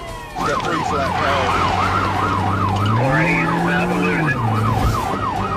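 Police car siren in its fast yelp, sweeping up and down about three to four times a second, over a low steady drone that rises in pitch about three seconds in and drops back.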